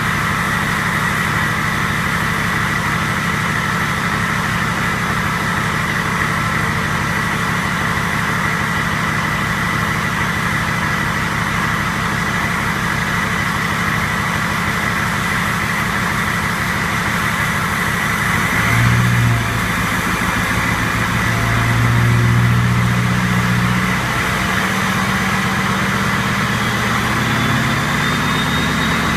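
Ford 6.0 Powerstroke V8 turbodiesel idling through a straight-piped stock 3.5-inch exhaust, with a steady high turbo whistle over the diesel rumble. The engine sound swells briefly twice, once about two-thirds of the way in and again a few seconds later.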